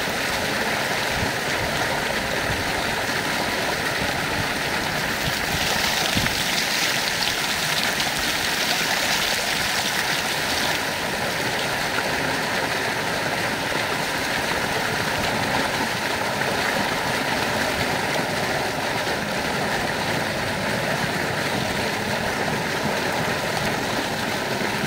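Heavy stream of water gushing from a concrete tank outlet and splashing over a bathing person and onto concrete, a steady rush.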